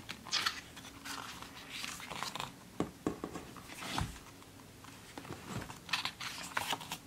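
Glossy pages of a thick photo book being handled and turned, with scattered soft paper rustles and slides and a dull thump about four seconds in.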